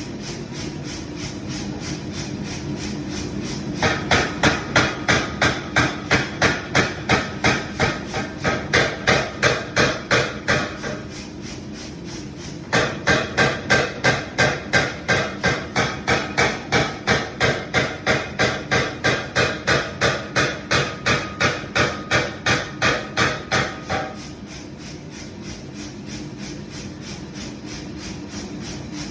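Hammer strikes forging heavy iron pipe: two long runs of ringing metal-on-metal blows, about two to three a second. Between and after the runs a lighter rapid tapping keeps going.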